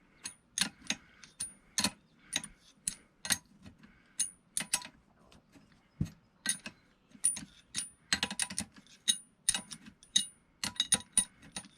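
Irregular metallic clicks and clinks of hand wrenches working the top-mount nut on a rear shock absorber, some in quick clusters.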